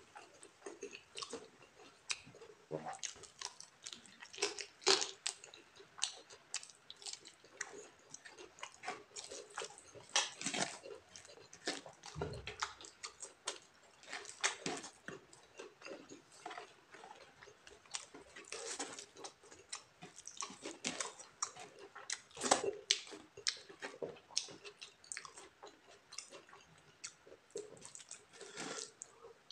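Close-up chewing and wet mouth smacks of someone eating chicken and white rice by hand, a steady run of irregular clicks with a few louder smacks.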